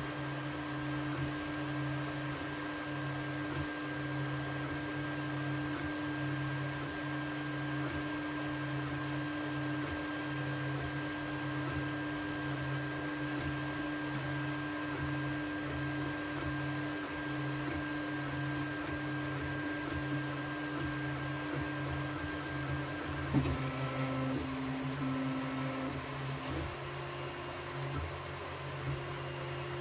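FDM 3D printer printing: its stepper motors whine in steady tones over a hum that pulses as the print head shuttles back and forth, with a fan hiss underneath. About three quarters of the way through, the motor tones shift in pitch as the moves change.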